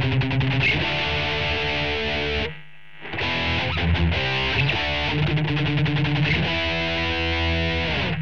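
Distorted electric guitar, an Ibanez RG370DX played through a Line 6 POD 2.0 amp modeler, playing a riff. It breaks off briefly about two and a half seconds in, starts again, and stops just at the end.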